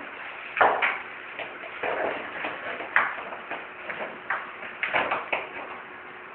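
Plastic toilet brush scraping and knocking across a tiled floor as a ferret drags it about, in irregular scrapes roughly once a second, with a cluster of them near the end.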